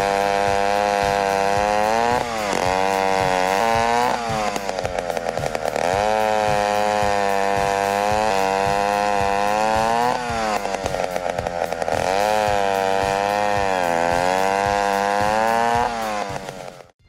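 Antique bow-bar chainsaw cutting slices off a log at full throttle: the engine pitch sags as the chain bites into the wood and climbs back as it clears, several times over. The sound cuts off abruptly near the end.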